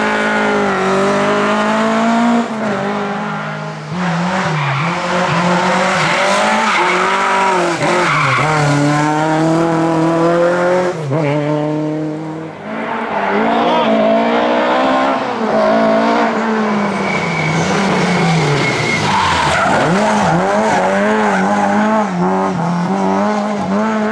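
Race-prepared Lada cars' engines revving hard, pitch climbing and dropping repeatedly through gear changes and corner exits, with tyres squealing and skidding through the corners.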